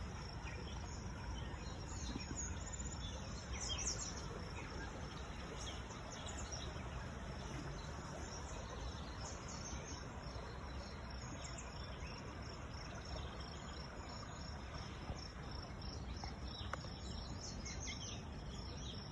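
Insects trilling steadily, with scattered short bird chirps over a low steady rumble.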